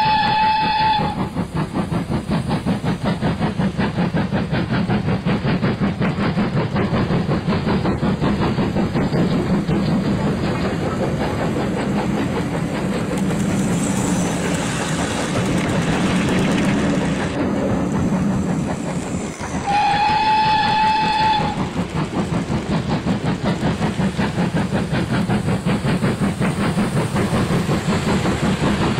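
Steam locomotive sound on a model railway: steady rhythmic chuffing throughout, with two whistle blasts, one at the start and one about twenty seconds in. A spell of hissing comes near the middle.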